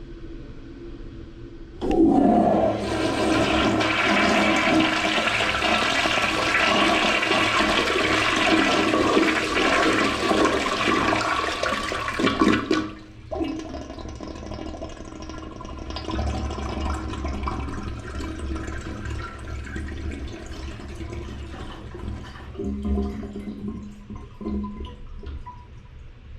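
Toilet flushing: a sudden loud rush of water starts about two seconds in and swirls on for about ten seconds. It then drops off sharply to a quieter run of water that continues.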